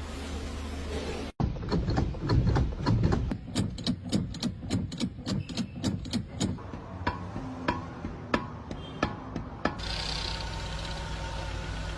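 Repeated sharp knocks, about two or three a second for some eight seconds, set between stretches of steady engine-like running noise.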